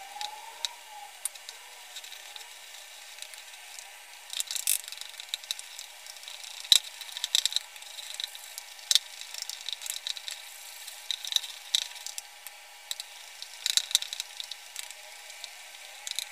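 A spoon stirring and beating besan (gram flour) batter in a bowl, with irregular clicks and scrapes of the spoon against the bowl that grow busier after a few seconds as the flour and water are worked into a smooth, thick batter.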